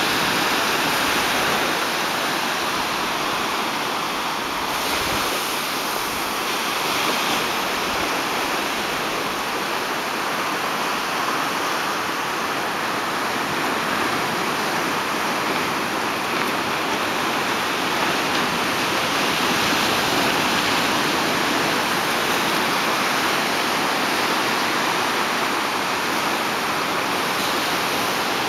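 Small ocean waves breaking and washing up the shore: a steady surf noise that swells and eases slightly.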